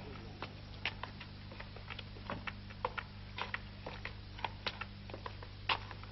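Footsteps climbing stairs, irregular light taps and knocks a couple of times a second, over a steady low hum.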